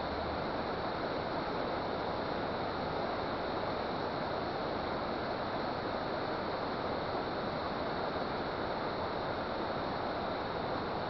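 Steady rush of water pouring through a dam, an even noise that does not change.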